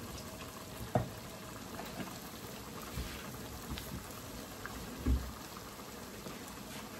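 A pot of okra stew bubbling and spattering on the stove, with a few light knocks of a utensil against the pot about one, three and five seconds in.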